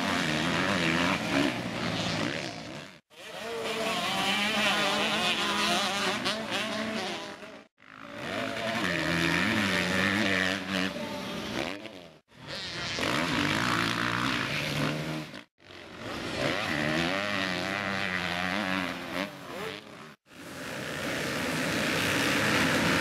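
Motocross bikes' engines revving hard, the pitch climbing and dropping as the throttle is worked, in a series of short clips that cut off abruptly one after another. Near the end several bikes run together as a pack.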